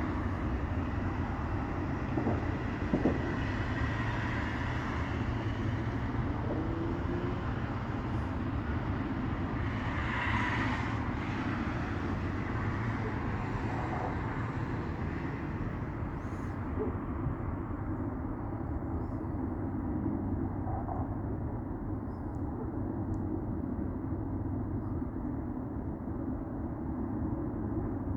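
A train rumbling past steadily. Its hiss fades from about two-thirds of the way through, leaving the low rumble, with a few faint distant pops here and there.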